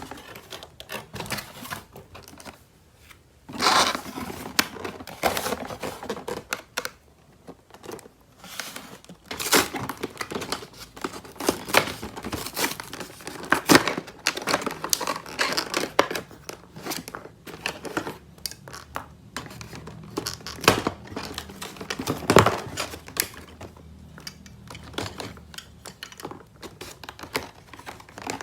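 Toy packaging being unwrapped by hand: plastic and paper crinkling and tearing, with irregular clicks and taps.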